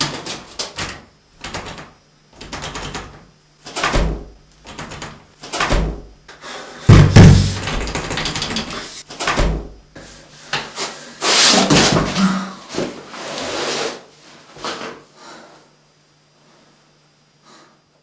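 Repeated knocks, bangs and scraping of hard objects being handled, with the loudest thud about seven seconds in; it stops a couple of seconds before the end.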